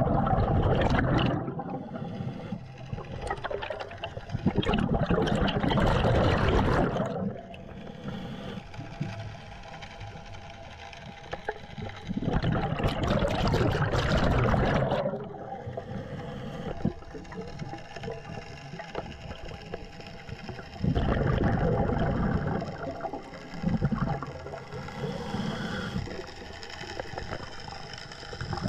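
Scuba regulator breathing heard underwater: long bubbling rushes of exhaled air every several seconds, with quieter stretches between the breaths.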